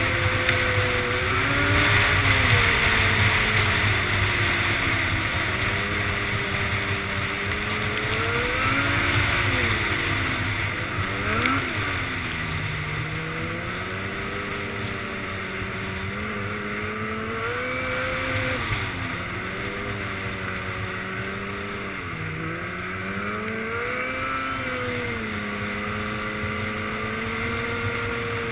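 Snowmobile engine running along a trail, its pitch rising and falling again and again with the throttle, dropping sharply and climbing back about eleven seconds in and again about twenty-two seconds in. Wind noise rushes over the microphone.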